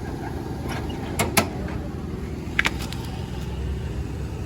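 A vehicle engine idling steadily, with a few sharp metallic clicks about a second in and again near three seconds from air-hose coupling hardware being handled.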